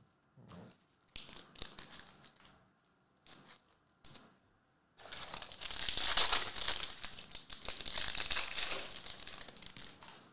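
A foil Panini Prizm trading-card pack being handled with a few short rustles, then torn open with a long, loud crinkle of the foil wrapper about halfway through.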